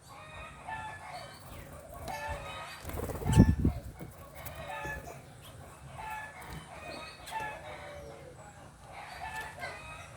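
Birds calling with short repeated calls, several a second. About three seconds in there is a loud, brief low rush.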